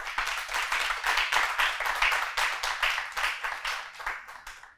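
Studio audience applauding: many hands clapping together, dying down near the end.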